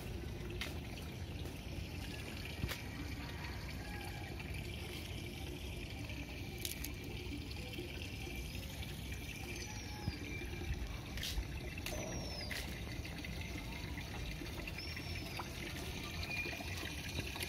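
Water trickling and running steadily, with a few faint clicks and some short, high, falling chirps over it.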